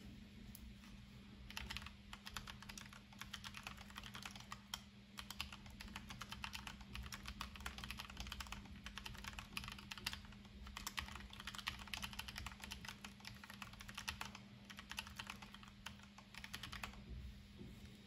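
Typing on a Keychron K3 low-profile mechanical keyboard: a fast, steady run of key clicks with brief pauses. The typing starts about a second and a half in and trails off near the end.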